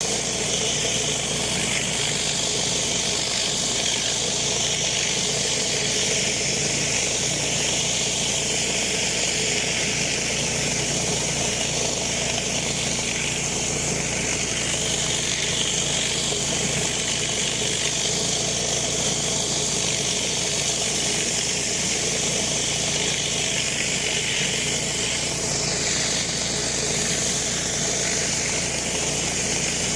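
Pressure washer running steadily: an engine drone under the loud hiss of the high-pressure water spray.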